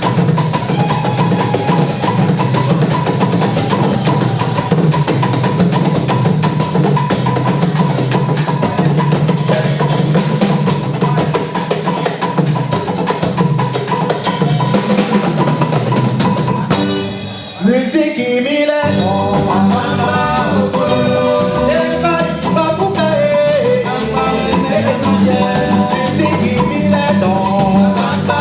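Music with a drum-kit beat. About 17 seconds in it drops out briefly with a rising swoop, then returns with a melody line over the drums.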